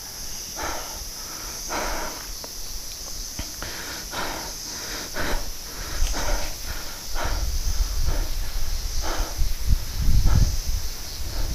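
Footsteps and rustling through dry forest leaf litter over a steady high drone of insects, with wind buffeting the microphone from about seven seconds in.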